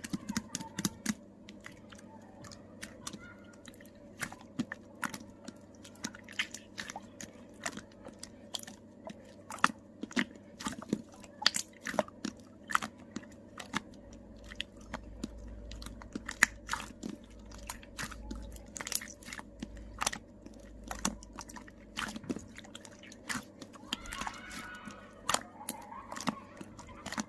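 Slime being squeezed and pressed by hand, making many irregular sharp clicks and crackles, a few a second.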